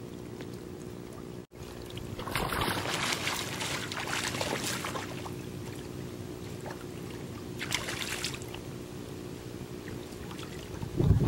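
River water splashing and trickling close to the microphone, loudest from about two to five seconds in and again briefly near eight seconds, over a steady low hum.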